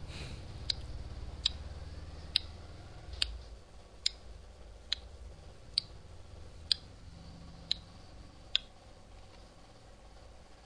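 About ten sharp clicks, evenly spaced a little under a second apart, stopping near the end, over a low hum.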